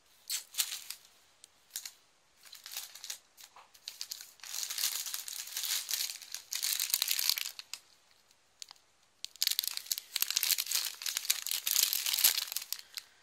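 Cellophane food wrapping crinkling and rustling as it is handled. There are short rustles at first, then two long stretches of continuous crinkling.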